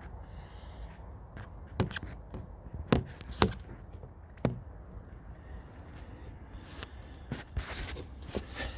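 Sharp knocks and clicks of parts and tools being handled during a rear brake pad change: a few separate knocks in the first half, the loudest two about three seconds in, then a quicker run of small clicks and a short scrape near the end.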